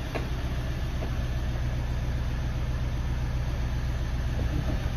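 Ford Transit Custom van engine idling steadily, heard from inside the cab, running on a newly fitted clutch and dual mass flywheel.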